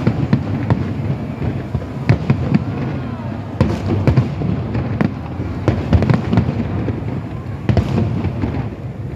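Aerial fireworks bursting one after another: many sharp bangs and crackles over a continuous low rumble.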